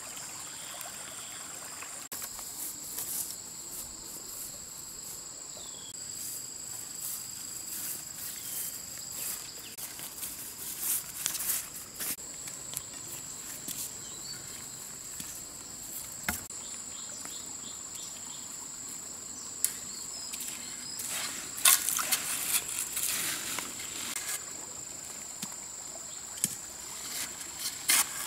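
Insects droning steadily at a high pitch, with scattered rustling and crunching of footsteps through leaves and brush that grow busier about three quarters of the way through.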